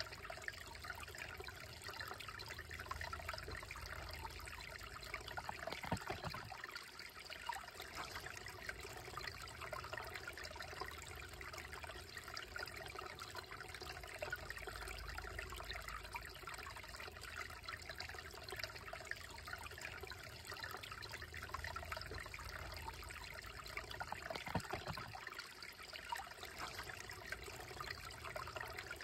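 Slow, shallow creek trickling and babbling over rocks and a small cascade, a steady water sound, with two brief sharper sounds, about six seconds in and late on.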